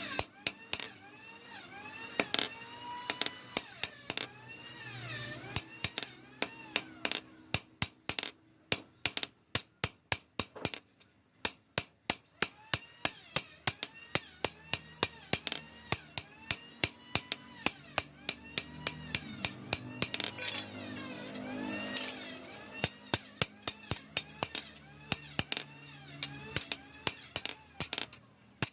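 Hammer tapping repeatedly with quick, light strikes, often several a second, with brief pauses.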